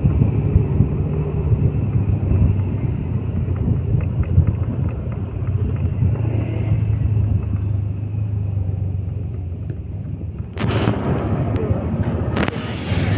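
Low, steady rumble of a road vehicle on the move. From about ten and a half seconds in, loud gusts of wind buffet the microphone.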